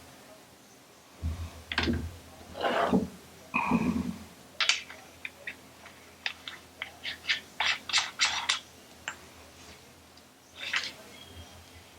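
Small hard parts being handled on a tabletop: a few knocks and scrapes about a second in, then a quick run of light clicks and taps, and one more scrape near the end.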